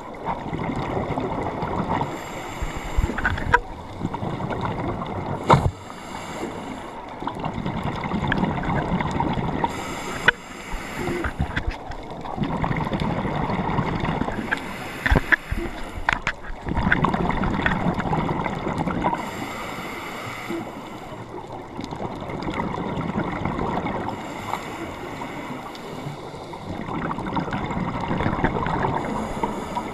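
Scuba diver breathing through a regulator underwater: a hiss on each inhale and a bubbling rumble on each exhale, repeating over several breaths, with a few sharp clicks.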